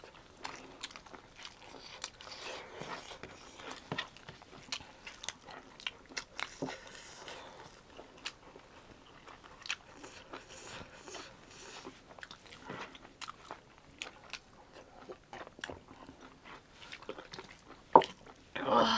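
A person chewing and eating a meal of pork curry and rice, with many short wet clicks of chewing and biting. There is one sharper knock near the end.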